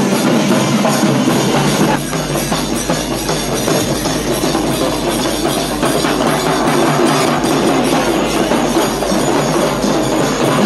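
Loud drum-led music with percussion.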